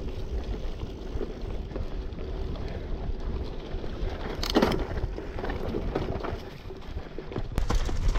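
Bicycle being ridden over a bumpy dirt trail: a steady rumble of wind on the microphone and tyres on dirt and dry leaves, with the frame and parts rattling. About halfway through a short squeal drops sharply in pitch, and near the end a quick run of rattles as the bike jolts.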